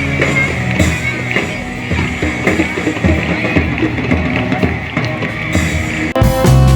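Live band music with drums playing. About six seconds in it switches abruptly to louder, sustained guitar chords.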